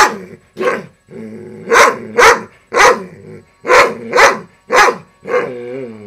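Large dog barking repeatedly, about eight deep barks. Between some barks, and again near the end, comes a lower drawn-out growl that bends in pitch.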